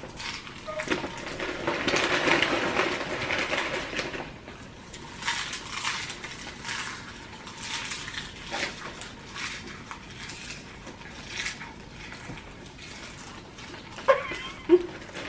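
People eating fast: chewing and mouth noises with scattered clicks and a stretch of rustling and crunching about a second in.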